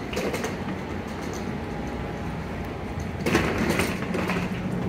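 Steady rumbling background noise in an airliner jet bridge. About three seconds in, a louder rush of air and a steady low hum join in, with a few clicks.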